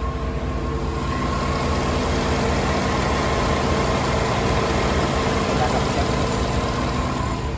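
2008 Hummer H2's V8 engine idling steadily, with no valve lifter ticking now that its oil pressure is back up after a new oil pickup strainer O-ring and oil pressure sensor.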